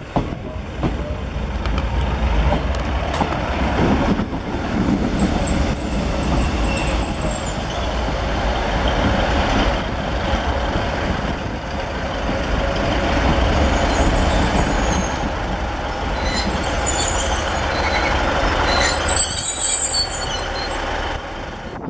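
Class 156 Super Sprinter diesel multiple unit running past at low speed: its underfloor diesel engines run steadily under the rumble of wheels on the rails. Thin high-pitched squeals come and go a few times. The sound eases off near the end as the last car goes by.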